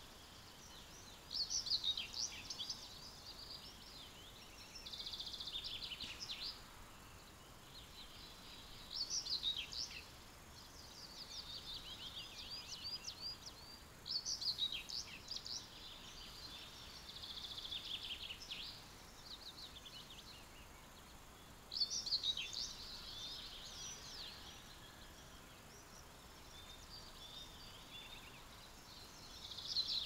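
Songbirds singing short, high, chirping phrases that come every few seconds, some louder and nearer than others, over a faint steady hiss of open country.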